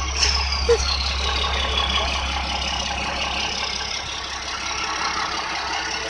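Dodge Cummins turbo-diesel truck engine idling with a steady low rumble, after a rev. A thin high whine slides down in pitch over the first two seconds or so.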